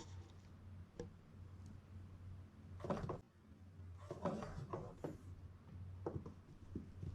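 Kittens scrabbling at a roller blind: short rustling, scraping bursts about three seconds in and again around four to five seconds, over a steady low hum.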